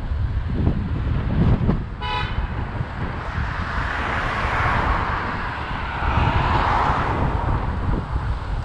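Wind buffeting the microphone of a camera on a moving bicycle, with a short horn toot about two seconds in. A rushing hiss then swells and fades through the middle, like a vehicle passing.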